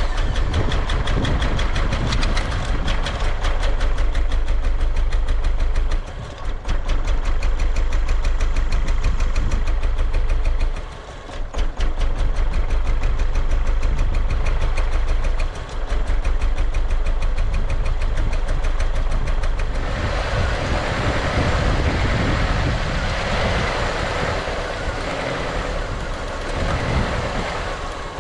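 1999 Honda Accord engine idling roughly with a misfire on cylinders 1 and 3. The running dips briefly three times, and a steady hiss joins it about two-thirds of the way through.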